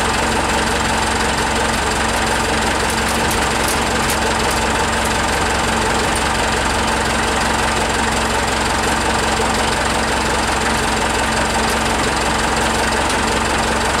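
Forklift engine idling steadily, an even, unchanging running note.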